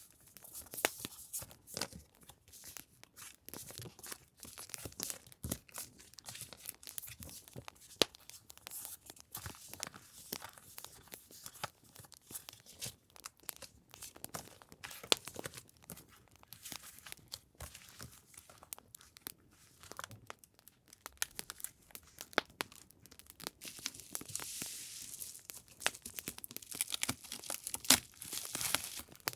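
Paper and packaging crinkling, rustling and tearing as stationery items are handled, in dense irregular crackles, with a longer stretch of rustling near the end. A crackling campfire track runs underneath.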